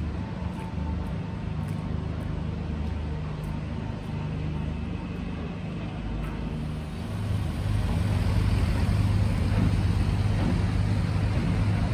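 Diesel engines of heavy vehicles running with a steady low drone, which grows louder about seven seconds in.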